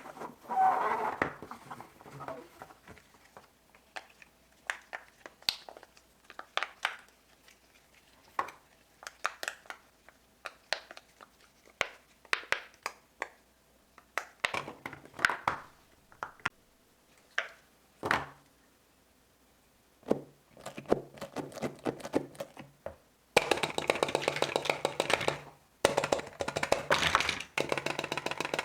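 Fidget toys being handled and pressed: scattered soft pops, taps and clicks, then about five seconds of dense rapid crackling near the end.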